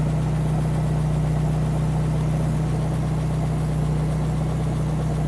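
1996 Suzuki X-90's 1.6-litre four-cylinder engine idling steadily, a constant low hum.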